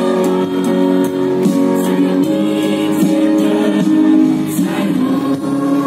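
Choir of young voices singing held chords with band accompaniment.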